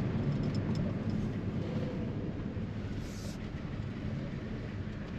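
Car driving along a highway, its steady engine and tyre rumble heard from inside the cabin.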